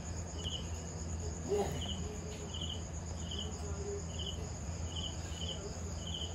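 A cricket chirping steadily in short trilled chirps, about one every two-thirds of a second, over a low steady hum.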